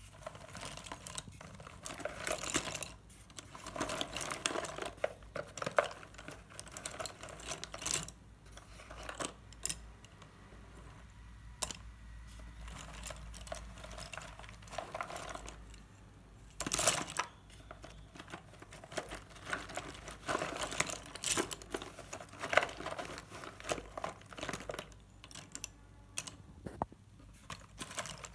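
A hand stirring through a boxful of square chalk sticks, which clatter and click against one another in dense, irregular runs, with a few louder clacks and some rustling against the cardboard box.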